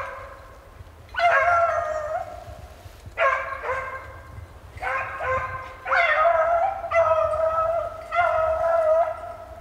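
Beagles baying in the distance: about six long, drawn-out bays, coming every second or two, as the hounds run a snowshoe hare's scent trail.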